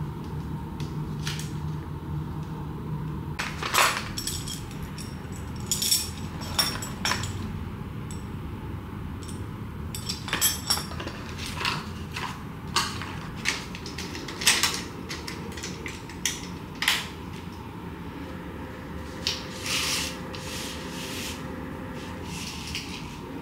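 Dishes, cups and cutlery clinking and being set down: a scattered series of sharp clinks and knocks over a low background hum.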